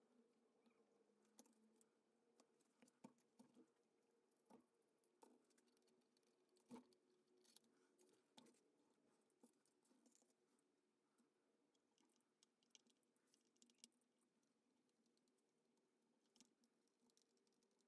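Near silence: faint room tone with a low steady hum and scattered quiet clicks and taps throughout.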